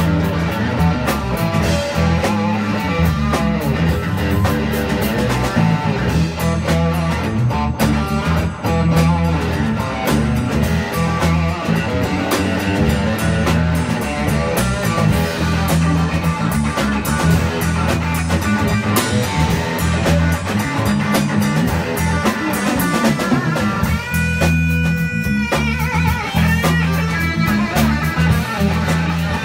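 Live blues-rock jam: a Strat-style electric guitar plays lead over an electric bass, loud and steady. About 24 s in, the guitar holds one long sustained note that bends down at its end, then wavers.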